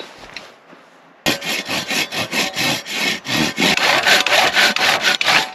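Small folding hand saw cutting a notch into a wet log in rapid, even back-and-forth strokes, starting sharply about a second in and stopping just before the end.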